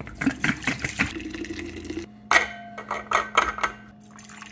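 Clicks and knocks from handling a stainless thermal coffee carafe and a ceramic mug, in two bursts, then coffee pouring into the mug near the end.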